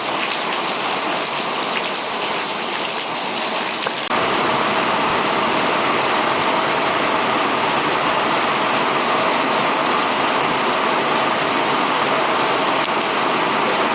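Torrential rain pouring down in a steady hiss, which abruptly becomes louder and fuller about four seconds in.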